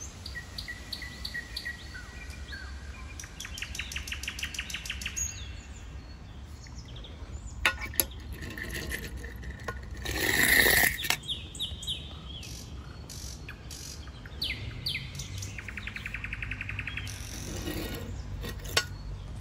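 Small birds singing outdoors, with rapid trills and chirps, over a low steady hum. About halfway through, a die-cast toy car rolls down a wooden ramp, a noisy rush of about a second that is the loudest sound, shortly after a couple of sharp clicks.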